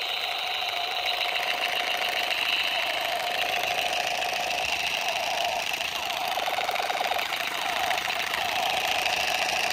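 Battery-powered toy combat gun firing its electronic rapid-fire sound effect, a continuous buzzing rattle held for several seconds that cuts off suddenly at the end.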